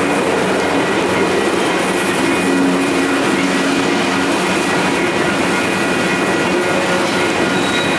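Covered hopper cars of a freight train rolling past over a grade crossing: a steady rumble of wheels on rail that does not let up.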